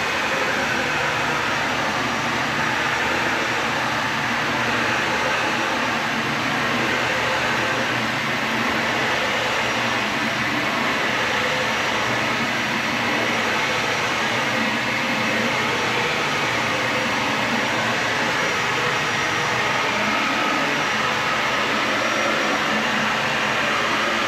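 Vacuum cleaner running steadily while being pushed over carpet.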